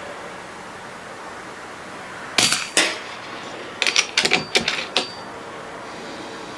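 Sharp metallic clicks and clacks: two about half a second apart near the middle, then a quick cluster of about six within a second.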